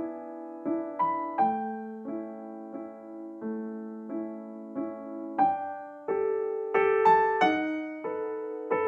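Background piano music: a slow, gentle melody of single notes and chords, each struck and left to ring out.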